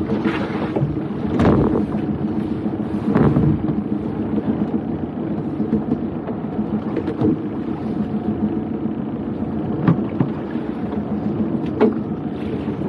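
Small boat's outboard motor running steadily, with wind and water noise and a few short knocks as the line is handled over the side.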